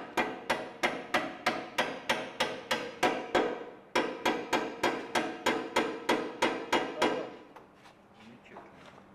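Hammer blows struck in a quick, even rhythm, about three a second. There is a short break about three and a half seconds in, and the hammering stops about seven seconds in.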